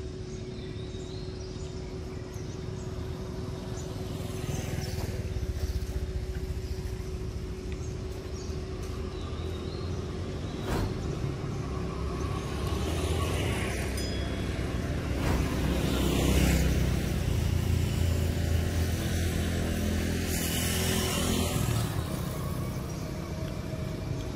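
Low rumble of a motor vehicle passing, building over several seconds to its loudest about two-thirds of the way through, then easing off.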